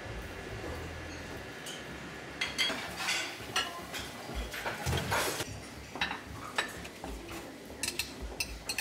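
Tableware clatter in a buffet dining room: scattered clinks of plates and cutlery over a low steady hum, busiest a few seconds in and again near the end.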